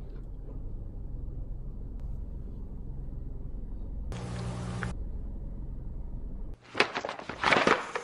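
Low steady rumble inside a stationary car with the engine idling, broken by a short hiss about four seconds in. Near the end the rumble cuts off abruptly and a loud burst of crackling noise takes over.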